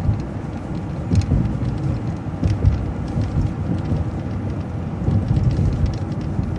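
MCO ViewMaster transit bus driving along, a steady low engine and road rumble heard from inside, with light clicks and rattles scattered through it.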